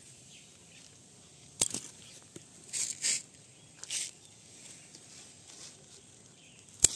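Eggplant plants being handled and picked: short rustles of leaves, and two sharp snips as the stems are cut, one about a second and a half in and a louder one near the end.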